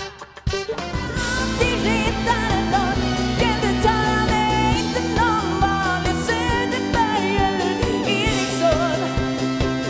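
Pop-rock band music: after a few drum hits, the band comes in about a second in with a steady drum beat under a wavering lead melody.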